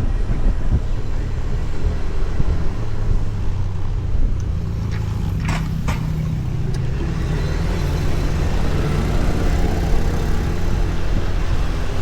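Honda Beat Street scooter on the move: its small engine runs steadily under a low rumble of wind and road noise, and the engine note firms up a few seconds in. Two brief sharp sounds come around the middle.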